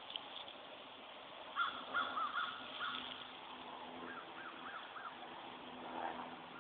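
Wild turkeys yelping: two series of about four short, rising-and-falling yelps, a couple of seconds apart.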